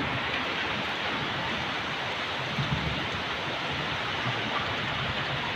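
Steady rain falling on garden foliage, an even, continuous hiss.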